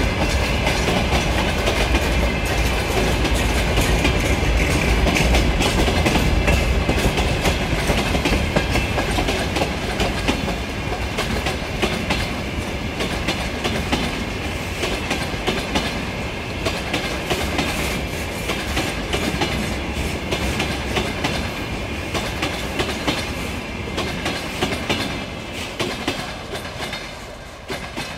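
Freight train of gondola wagons and tank cars rolling past close by, its wheels clattering over the rail joints in a steady rumble. The sound eases off in the last few seconds as the final tank cars pass and draw away.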